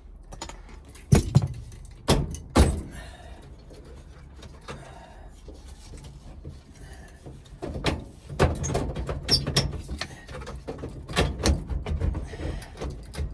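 Metal hand tools clanking and clicking against the truck's steering column as the column bolts are worked loose: a few sharp knocks at first, then a quicker run of irregular clicks and knocks near the end.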